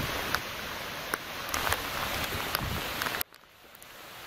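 Steady rain falling on the surface of a lily-pad-covered pond, a dense hiss with scattered sharp drip ticks. It cuts off abruptly about three seconds in, leaving a fainter hiss.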